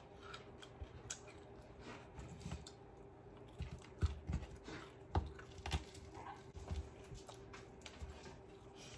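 Close-up eating sounds: the crisp coating of KFC fried chicken crackling as it is torn apart by hand, with crunching and chewing. A few heavier low knocks come around the middle.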